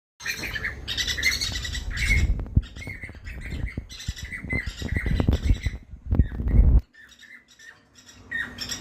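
Several small birds calling in quick, overlapping chirps and squawks. A low rumble runs under them and stops near the end.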